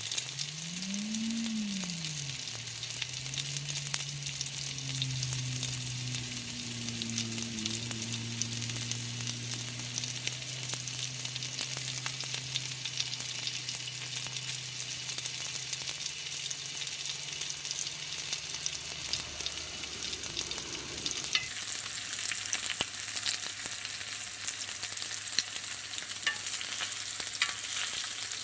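Food sizzling and crackling in a hot pan while being stirred, with scattered sharp pops of spitting fat, more of them near the end.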